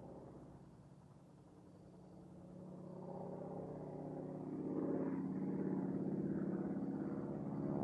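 North American SNJ (T-6 Texan) trainer's Pratt & Whitney R-1340 radial engine and propeller droning in aerobatic flight. It fades briefly about a second in, then swells steadily louder from about three seconds in.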